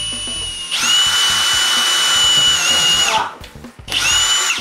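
Cordless drill whining as it bores a centre hole through a van trim panel. It speeds up a little under a second in, runs steadily, and stops about three seconds in, then gives a second short burst near the end.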